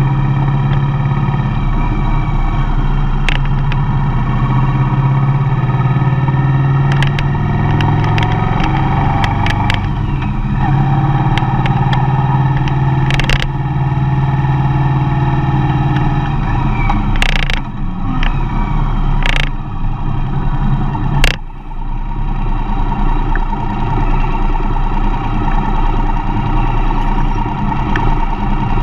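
Mercedes-Benz Vito van driving, its engine and road noise running steadily, with several short knocks or clicks scattered through. The noise dips briefly about two-thirds of the way in.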